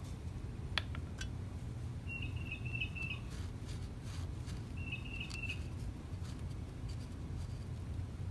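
A small bird calling in two short runs of quick, even chirps, about two seconds in and again about five seconds in, over a steady low rumble. A single sharp click comes just under a second in.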